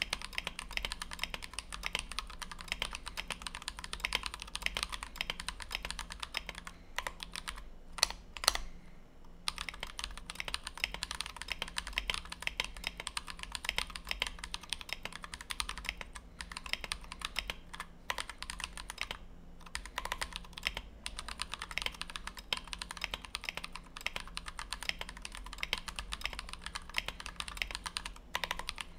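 Fast typing on a custom 60% mechanical keyboard with lubed, filmed Everglide Dark Jade linear switches on a brass plate in a Tofu 60 case, capped with PBT OEM blank keycaps: a dense, even stream of keystroke clacks. About seven seconds in the typing breaks off for roughly two seconds, with a few single keystrokes in the gap, then resumes.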